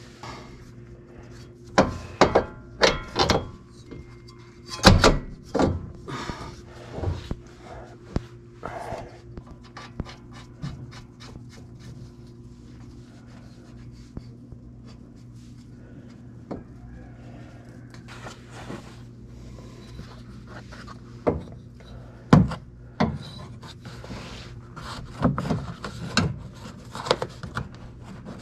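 Irregular metal knocks and clinks, with rubbing and handling noise between them, as a new front control arm and its hardware are worked into place in a Porsche 996's front suspension. The sharpest knocks come in two clusters, one in the first several seconds and another near the end.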